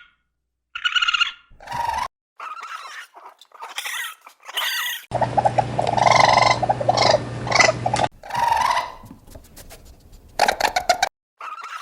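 A run of short animal calls, spliced from several separate recordings with brief silent gaps between them.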